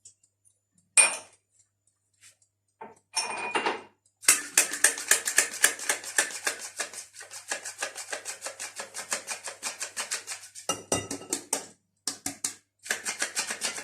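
Hand whisk beating cake batter in a bowl: rapid, regular strokes clicking against the bowl for about six seconds, then a few shorter runs. A single knock about a second in and a brief clatter come before it.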